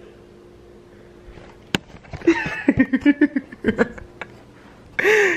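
A person's wordless voice sounds in quick pulses about two seconds in, then a loud drawn-out vocal sound at the end, after a sharp click, over a steady low hum.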